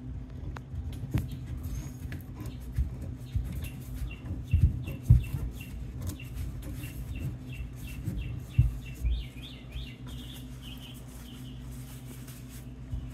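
Purolator spin-on oil filter being turned by hand in a filter-can cutter, the cutting wheel scoring round the steel can. Dull knocks as the filter and cutter are handled, and a run of short high squeaks, about three a second, through the middle.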